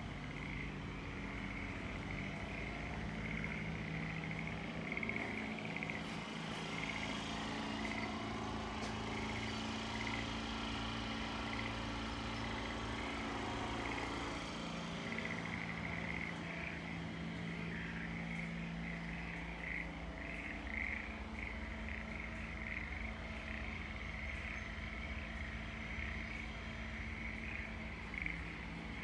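Chorus of frogs calling from flooded rice paddies, a steady stream of pulsing calls over a low steady hum. About halfway through, a passing vehicle swells and fades.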